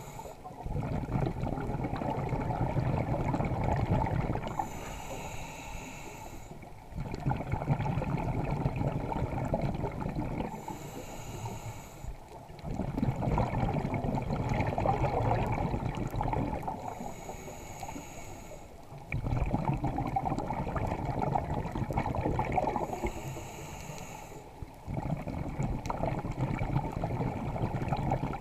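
A scuba diver breathing through a regulator underwater: each breath is a short hissing inhale followed by a long rumble of exhaled bubbles, about five breaths in a steady rhythm.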